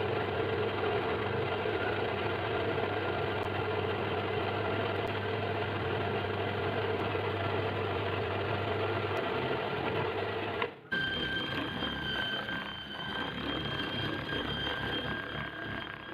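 An electric workshop power tool's motor running steadily. About eleven seconds in it cuts abruptly to a second steady run with a higher whine.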